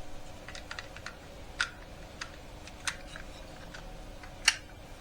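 Small plastic parts of a car's climate control unit (buttons and faceplate) being handled and pressed, giving a series of irregular sharp clicks, the loudest near the end.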